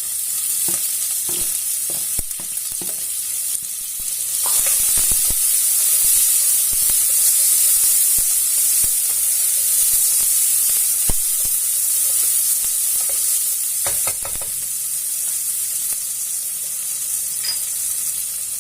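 Chopped onion frying in hot oil with tempering spices, a steady high sizzle that grows louder about four and a half seconds in. A spoon stirs and scrapes, with scattered ticks and knocks against the pan.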